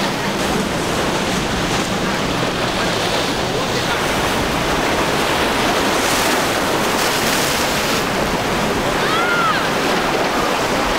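Steady rush of waves and boat wake spray in rough inlet water, with wind buffeting the microphone.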